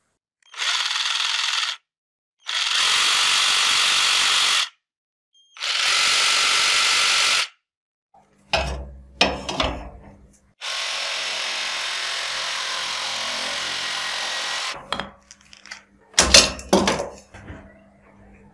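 Jigsaw with an extra-long wood blade cutting, in short runs that start and stop abruptly: three runs of one to two seconds, then a longer steady run of about four seconds. Knocks and clatter come between the runs and again near the end.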